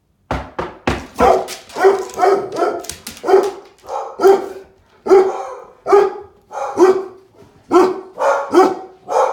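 Three or four knocks on a door, then a dog barking repeatedly, about one to two barks a second. This is alarm barking set off by the knock.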